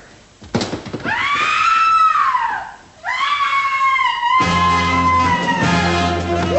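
Two long, high-pitched screams: the first rises and falls, the second is held and slowly sinks. Dramatic orchestral music with low brass comes in under the second scream about four and a half seconds in.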